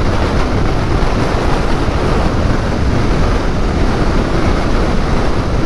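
Wind buffeting around a motorcyclist's helmet at dual-carriageway speed on a BMW F800GT, a loud, steady rush heavy in the low end on the helmet-level microphone. The turbulence comes off the bike's stock windscreen, which the rider finds too low for him and would change for a taller screen or an extender.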